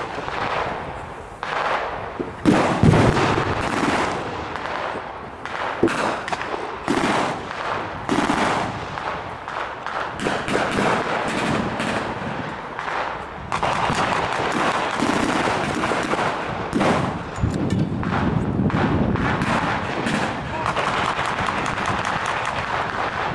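Battle-reenactment gunfire from blank-firing rifles and machine guns: a steady exchange of shots and rapid bursts. One loud crack stands out about three seconds in.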